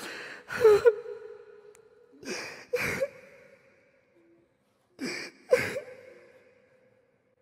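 A man sobbing: three bouts of sharp, gasping breaths, each a quick pair, about two and a half seconds apart with quiet between.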